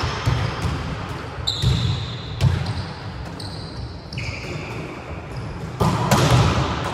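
Volleyballs being struck by hand and bouncing on a wooden sports-hall floor, a handful of sharp smacks that echo around the hall, with the loudest hits about six seconds in.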